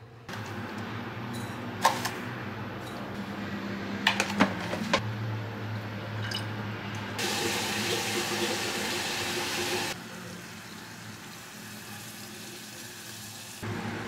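Liquid heating and bubbling in a stainless steel saucepan on a gas burner, with a few sharp clinks about two and four seconds in. A louder steady hiss of liquid runs for about three seconds in the middle.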